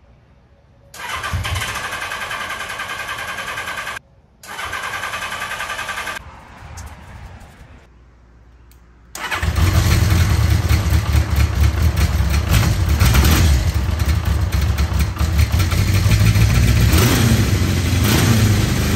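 The electric starter cranks the 1981 Honda CB650's air-cooled inline-four in two bursts with a short break between. About nine seconds in, the engine fires and keeps running steadily.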